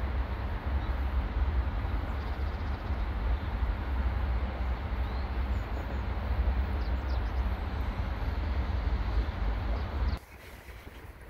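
Outdoor city ambience: a steady low rumble with a hiss above it, cutting off abruptly about ten seconds in.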